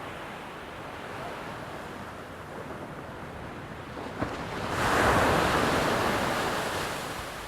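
Ocean surf washing on a shore, with one wave breaking loudly about five seconds in and then slowly draining away.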